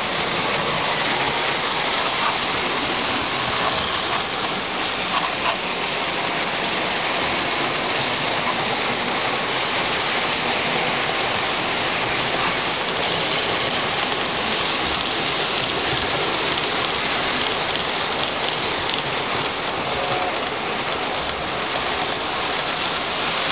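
Lionel O-gauge train running on three-rail track: a steady rushing noise of the wheels rolling along the rails. A faint two-note tone sounds near the end.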